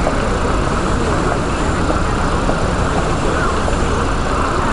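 Steady rumbling hum of distant city traffic and harbour noise, with no thunder from the silent heat lightning.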